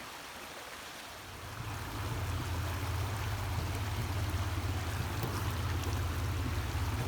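Creek water running, a steady rushing hiss. About a second and a half in, a low rumble joins it and the sound grows louder.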